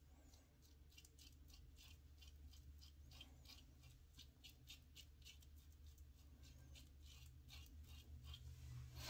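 Faint, quick scraping strokes of a 3D-printed injector razor cutting stubble through shaving cream on the neck, about two or three strokes a second.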